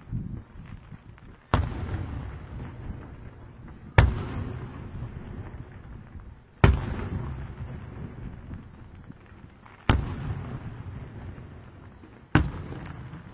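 Aerial firework shells bursting: five sharp bangs about two and a half seconds apart, each trailing off in a long echoing rumble.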